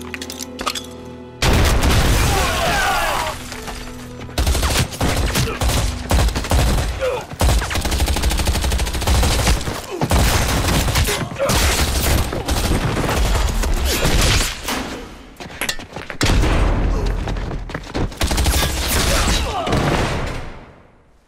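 Film battle soundtrack: heavy, continuous gunfire from many guns at once, with deep booms, over dramatic music. It breaks in suddenly about a second and a half in, after a few sustained music notes, and dies away near the end.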